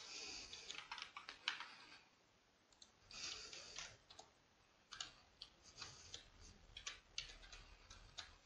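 Faint computer keyboard typing: scattered single keystrokes as a user name and password are entered, with two brief soft hisses, one at the start and one about three seconds in.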